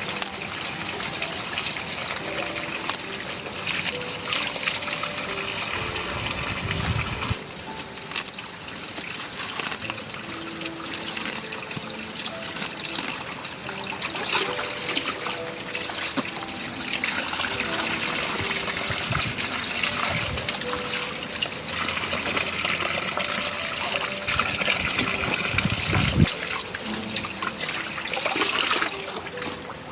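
Running water trickling steadily, with some unevenness in its flow.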